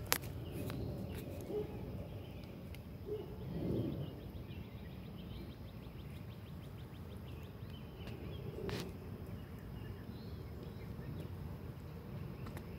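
Quiet outdoor background with faint rustling in dry leaves and a few sharp clicks, the sharpest right at the start. About four seconds in, a faint rapid ticking trill runs for about two seconds.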